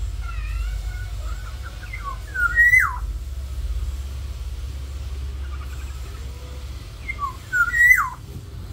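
Black-naped oriole singing: soft warbling notes, then two loud fluty whistled phrases about five seconds apart, each rising sharply and then gliding down.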